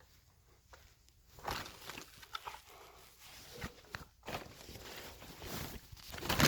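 Quiet footsteps and rustling of movement, with a few soft, scattered knocks.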